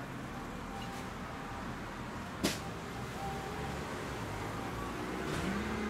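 Steady background ambience with one sharp click about two and a half seconds in, and a low pitched hum that swells near the end.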